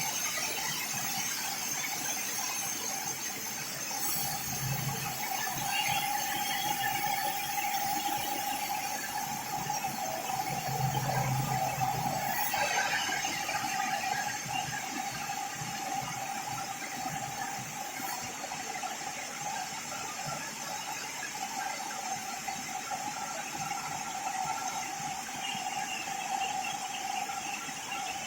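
Parallel vertical band sawmill running: a steady high whine over a hiss, with a low hum that swells briefly twice.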